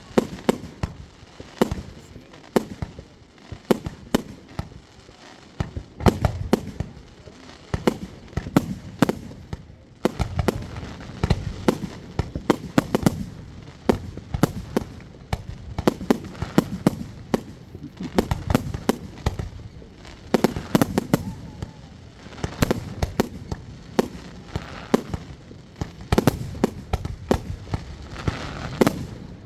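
Fireworks going off without pause: many sharp bangs and crackling reports, several a second, over deeper booms.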